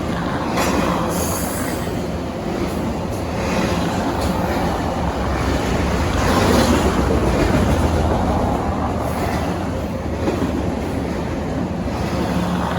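Steady loud rumbling noise, with short high screeches about a second in and again midway.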